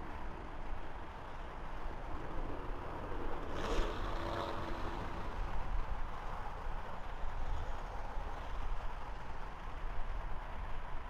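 Steady low rumble of a distant vehicle or traffic, with a brief louder vehicle sound about four seconds in.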